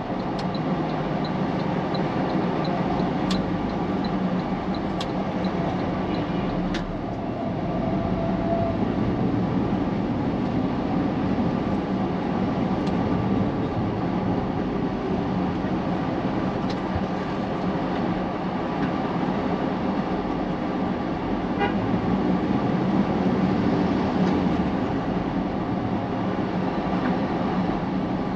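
Steady road traffic noise heard while driving, engines and tyres running continuously, with a vehicle horn tooting briefly.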